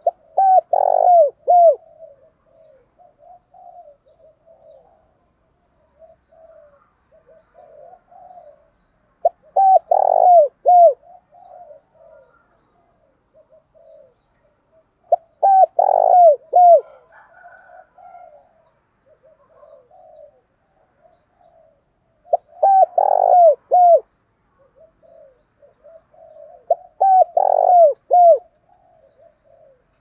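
Spotted dove cooing: five loud phrases of several quick downward-curving coos, roughly every six seconds, with softer coos in between.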